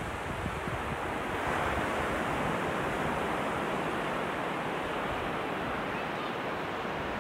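Sea surf breaking offshore: a steady rushing wash of waves that swells a little louder about one and a half seconds in.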